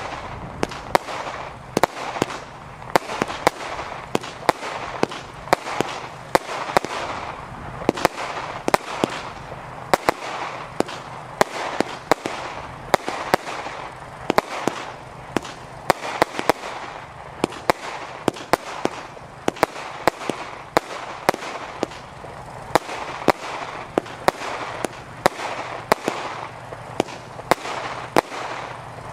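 WECO 'City of Heroes' compound of three pre-fused consumer firework batteries firing continuously: sharp bangs of shots and star bursts, about one to two a second, over a steady crackling hiss.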